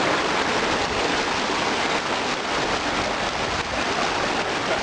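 Flowing river water rushing steadily, an even noise without breaks.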